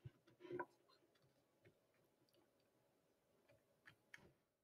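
Near silence: room tone with a soft sound about half a second in and a few faint clicks near the end.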